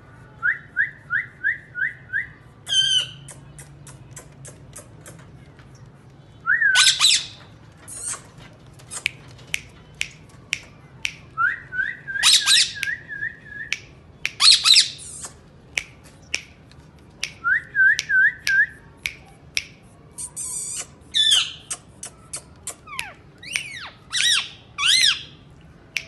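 Indian ringneck parakeets calling: runs of five or six short rising whistled notes, broken by several loud harsh squawks, with many sharp clicks between them.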